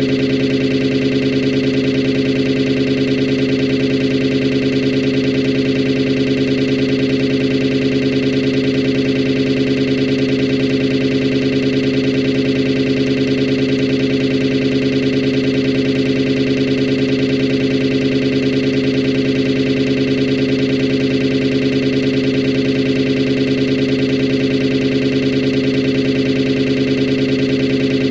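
Synthesized sawtooth-wave chord with a flanger effect, held at a steady pitch without any change.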